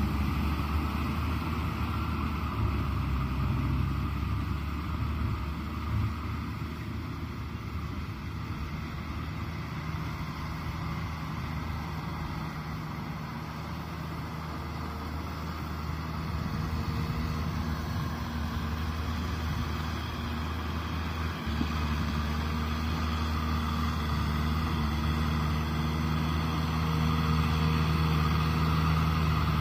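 Kubota M6040SU tractor's diesel engine running steadily under load while its rotavator churns wet paddy mud. It is louder at the start and again near the end as the tractor passes close, and fainter in the middle.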